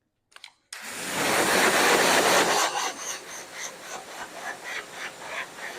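Pressure washer spray hitting a wash mitt to rinse leftover dirt out of it. The spray starts suddenly under a second in and is loudest for about two seconds, then drops to a lower, fluttering hiss.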